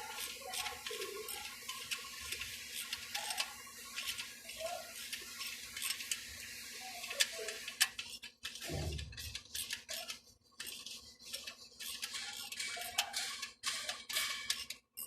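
Irregular metallic clicks and clinks of hand tools working on an engine, with a short low falling sound about eight and a half seconds in.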